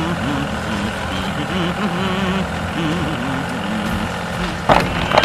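An engine running steadily, with a wavering tone over it. Two short, loud sounds with a falling pitch come near the end.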